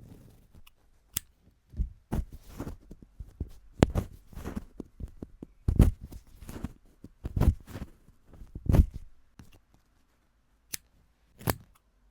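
Handwork on punch needle yarn art: a string of irregular soft thuds and scratchy strokes of tools working through yarn and fabric, with a short pause before two last strokes near the end.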